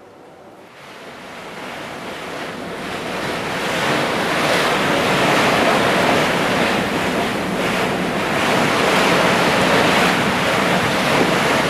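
Open ocean: waves washing, fading in over the first few seconds and then holding steady.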